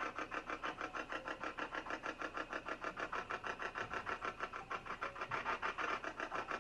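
Spirit box (ghost box) sweeping through radio stations, giving a fast, even chopping of static several times a second.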